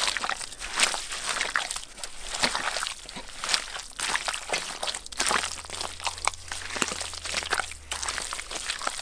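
Wet mud being worked by hand, with irregular squelching and slapping strokes.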